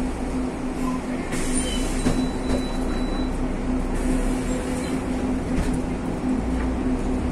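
Inside a moving city bus: the diesel engine and running gear make a steady drone, with a few faint knocks or rattles.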